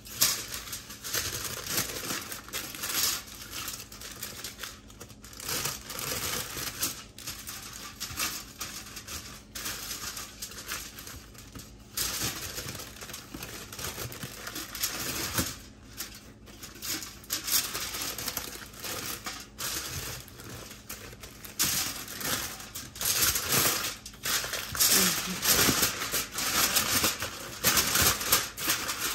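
Kitchen wrapping crinkling as it is handled and folded around food, in irregular bursts that grow louder near the end.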